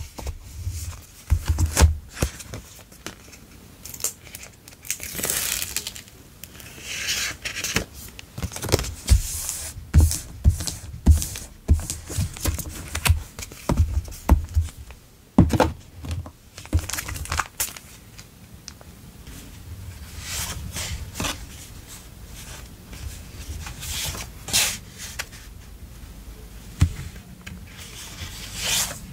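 Paper memo-pad sheets handled and riffled by hand: irregular rustling and flicking of the sheets, with soft knocks as the stack is moved.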